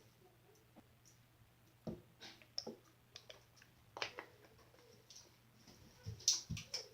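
Glossy slime being squished and poked, making faint scattered sticky clicks and pops, with a few louder ones near the middle and end.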